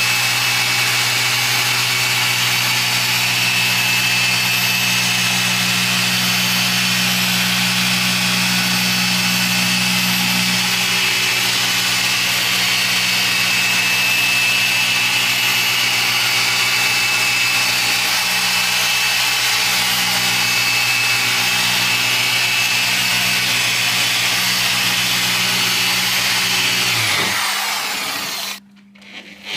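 A 15 mm-throw dual-action polisher running steadily on car paint, compounding a test spot. It winds down and stops near the end.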